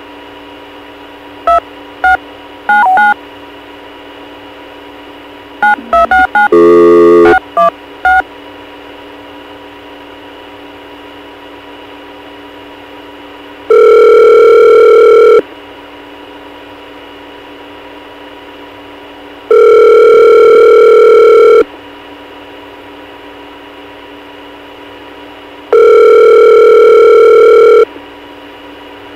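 Telephone line recording: touch-tone dialing beeps in two quick runs, with a brief harsh tone about seven seconds in. Then the ringback tone rings three times, each ring about two seconds long and about six seconds apart: the call is ringing through at the far end, not yet answered. A faint steady hum of the line lies underneath.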